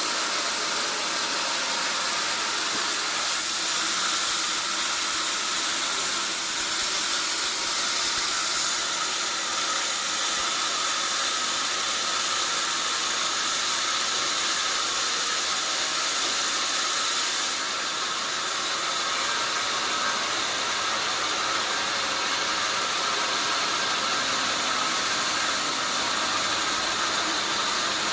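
Sawmill machinery running: a steady hissing noise with a faint whine. It eases slightly about two-thirds of the way through.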